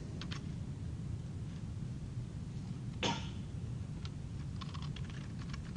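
A single short cough about three seconds in, over faint room hum, with a few light clicks before and after it.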